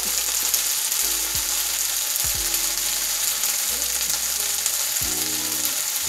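Cut okra frying with bacon, onions and garlic in an oiled skillet: a steady sizzle, the sizzle that helps take the slime out of the okra.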